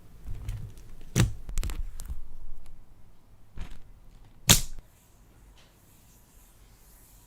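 Sharp clicks and taps of slime and clay supplies being handled, a quick cluster of them about a second in and one loudest snap about four and a half seconds in, over a low rumble that fades by the middle.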